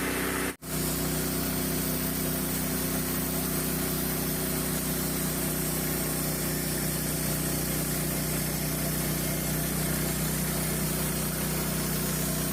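Small gasoline engine of a Frontier OS27 portable bandsaw sawmill running steadily at a constant speed, with a momentary dropout about half a second in.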